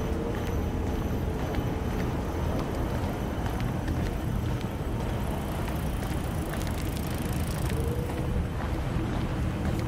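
Steady outdoor background noise, mostly a low rumble, with a few faint ticks.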